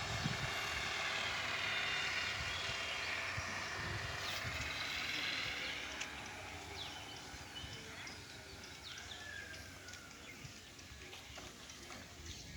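An engine running steadily, fading about halfway through, with scattered light clicks and knocks.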